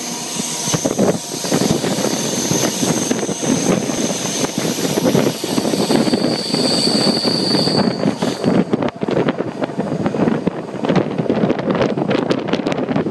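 DD-AR double-deck train running along the track, heard from an open window: steady wheel-and-rail rumble with wind buffeting the microphone and a run of clicks and clatter from the wheels. A high squeal sounds for about two seconds partway through.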